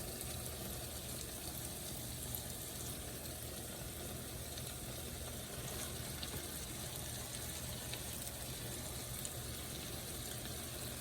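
Food frying in hot oil in a wok: a steady, even sizzle with a few faint pops.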